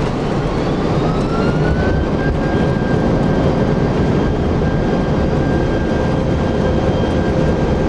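Airbus A330 on its landing rollout, heard from the cockpit: a steady, loud rumble of engines, airflow and runway. An engine whine rises about a second in and then holds at one pitch.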